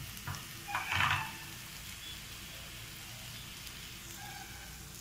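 Corn, capsicum and cabbage sizzling gently in a non-stick frying pan, with a couple of short rustling knocks about a second in as paneer settles onto the vegetables.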